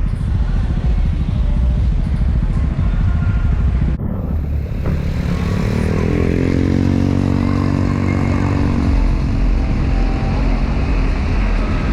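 125cc Honda scooter being ridden, with heavy wind buffeting on the microphone over the engine. About five seconds in, the engine note climbs in pitch as it accelerates, then holds steady for a few seconds.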